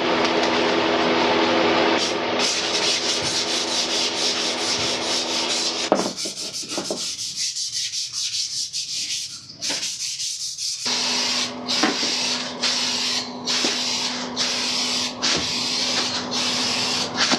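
400-grit sandpaper sanding primer filler on a plastic motorcycle fairing panel, in steady back-and-forth strokes. It eases off midway, then resumes as separate strokes at about one and a half a second.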